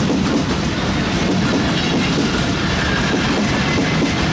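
Bogie oil tank wagons of a freight train rolling past: a steady loud rumble of steel wheels on the rails, with clickety-clack as the bogies cross the rail joints.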